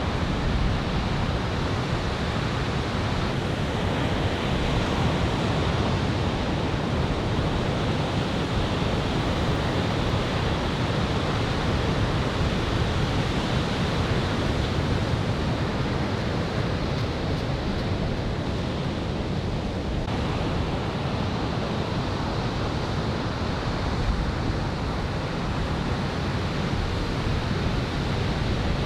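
Ocean surf breaking and washing onto a sandy beach in a steady, even noise, with onshore wind on the microphone.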